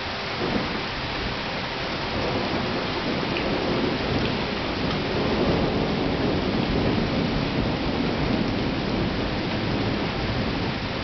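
Steady rain with a long roll of thunder that swells from about two seconds in, is loudest in the middle and dies away near the end.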